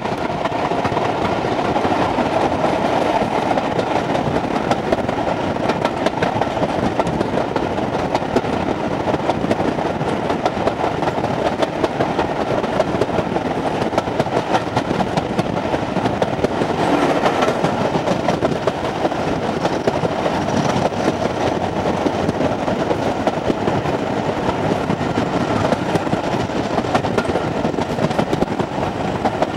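Train running steadily along the track: a constant rumble of wheels on rail with fine, rapid clicking.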